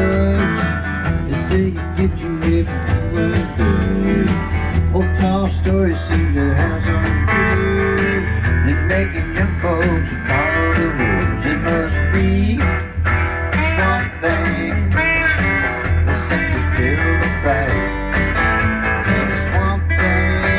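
A live band jam: electric and acoustic guitars playing together over a strong low bass end, without pause.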